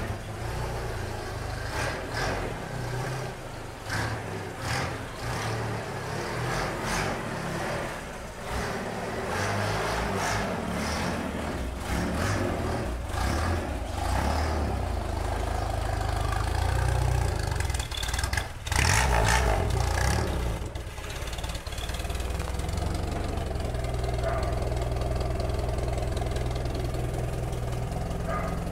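Chevrolet Opala's engine running as the car is driven out of the garage, with some knocks and clicks in the first several seconds. It revs up louder a little past halfway, then settles into a steady idle.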